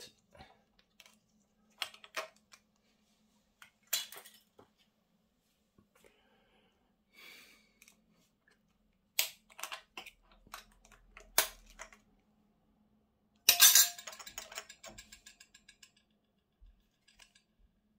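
Small metal parts of a Shimano Alfine 11 internal gear hub clicking and clinking as it is taken apart by hand, with a small screwdriver prying at the axle end and the cover plate lifted off. The clicks come in scattered bunches; the loudest is a clattering clink with a brief ring about fourteen seconds in.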